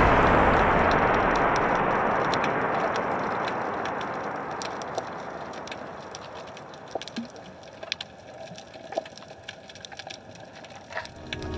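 A broad rushing noise fading away over the first several seconds, then sparse sharp clicks and crackles of underwater ambience, a few to several a second, until the music swells back near the end.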